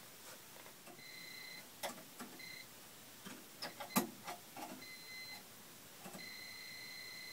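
Voltage tester in an electric meter socket sounding a high, steady beep in several bursts: two short ones about a second in and past two seconds, a faint one near five seconds, and a longer one near the end. The tone signals that the line voltage is good. Scattered clicks and knocks are heard between the beeps, the loudest about four seconds in.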